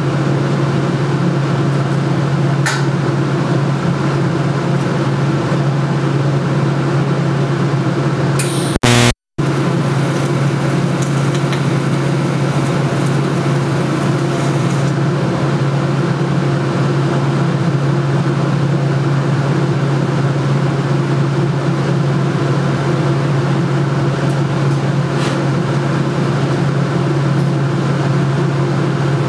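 Steady electrical hum from a running TIG welding machine, unchanging in level. About nine seconds in it is broken by a short loud crackle and a moment's silence.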